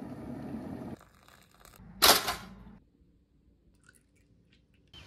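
Water boiling in a glass electric kettle, a steady low bubbling rumble that stops after about a second. About two seconds in comes a short, loud rushing noise, then only faint small sounds.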